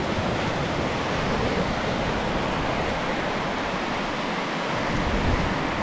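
Sea surf washing on a beach: a steady wash of noise that swells slightly near the end.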